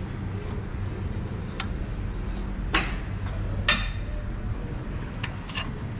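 About five sharp metallic clicks and clinks as parts of a Ford 10R80 transmission's CDF clutch drum are handled and fitted, over a steady low hum.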